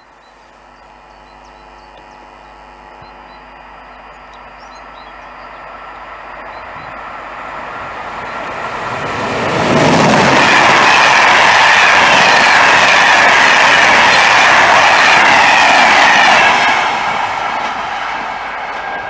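A Corail passenger train hauled by a BB22200 electric locomotive approaching and passing, growing steadily louder for about ten seconds. It then rushes past loudly with wheel and rail noise for about six seconds before easing off.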